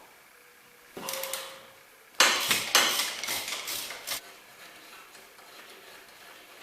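Metal tools clanking and knocking: a short burst about a second in, then a louder run of sharp metallic clanks lasting about two seconds.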